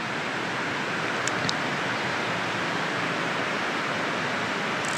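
Steady rush of flowing water, an even hiss-like wash at a constant level.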